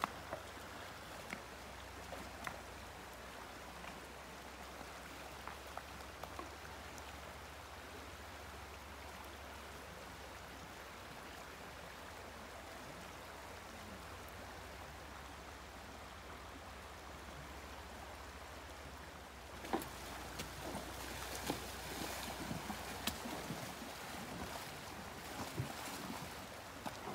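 Shallow creek water running steadily. About twenty seconds in, a horse's hooves begin splashing through the water in a run of quick, repeated splashes that are louder than the flow.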